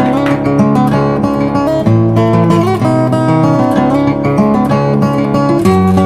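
Background music led by strummed acoustic guitar, with notes changing in a steady rhythm.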